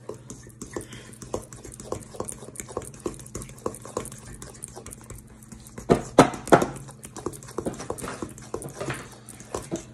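Metal spoon stirring thick chocolate cake batter in a stainless steel mixing bowl, scraping and clinking against the bowl in a quick, uneven rhythm. A few louder knocks come about six seconds in.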